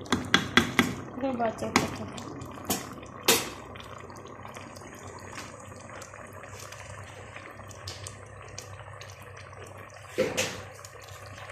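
A spoon knocking against the rim of a pot of rice cooking in broth, several sharp taps in the first few seconds, then a soft steady simmer of the liquid with faint ticks. One louder knock comes near the end.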